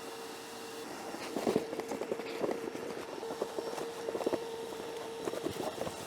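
Footsteps walking, with irregular scuffs and knocks starting about a second in, over a steady faint hum.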